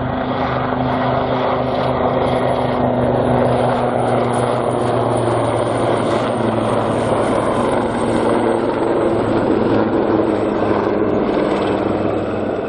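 AgustaWestland AW159 Wildcat helicopter in display flight, its rotors and turbines giving a steady loud drone. A thin high whine runs over it and falls slightly in pitch past the middle.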